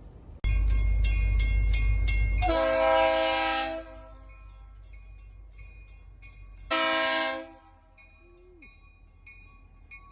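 Freight locomotive air horn sounding two blasts, a longer one about two and a half seconds in and a shorter one about seven seconds in, over a low rumble at the start. A grade-crossing warning bell dings steadily, about three strikes a second.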